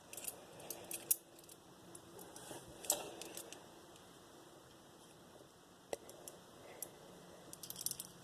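Small metal parts of a Master Lock 410 padlock clicking and tapping as they are handled during reassembly. The clicks are scattered: a cluster right at the start, one about three seconds in, one about six seconds in, and a quick run near the end.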